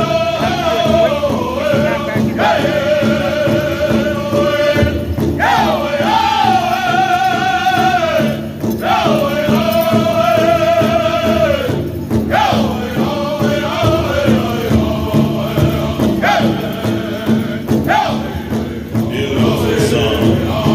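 Powwow drum group: several men singing together in high voices while beating one large drum at a steady pulse. The song comes in repeated phrases of a few seconds, each starting with a sharp leap up in pitch and then falling away.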